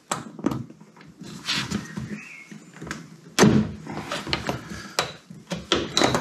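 Hand pop-rivet gun squeezed again and again to pull a long, fat headlamp-bowl rivet, which takes a lot of effort: a run of short clicks and clacks from the handles and jaws, with one sharp, loud crack about three and a half seconds in.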